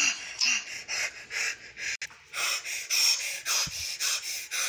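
A person's breathy puffs of breath in quick succession, about two a second, like panting.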